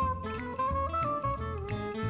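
Background music: a plucked acoustic guitar with a steady low bass pulse.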